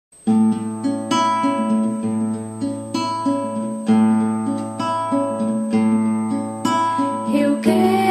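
Acoustic guitar strumming chords, about one strum a second, as the introduction to a song. A voice begins singing near the end.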